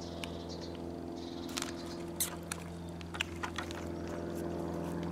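Light crinkles and small clicks of a plastic food bag of airgun pellets being handled, a few times, over a steady low hum.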